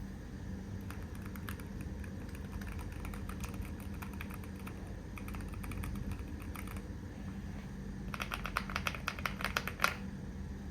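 Typing on a Keychron Q1 HE keyboard with Hall-effect magnetic switches: irregular keystrokes for several seconds, a short pause, then a faster, louder run of keys ending in one hard stroke near the end.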